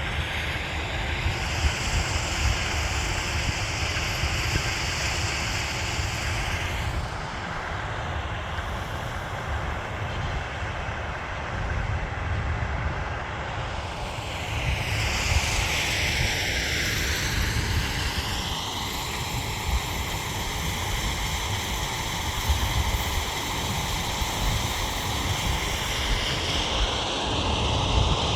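Harvest machinery running steadily with a deep rumble, wind buffeting the microphone; a high whine shifts and slides down in pitch about halfway through.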